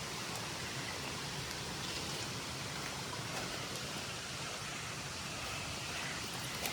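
Rain-swollen creek rushing steadily, an even watery hiss, with a few faint ticks over it.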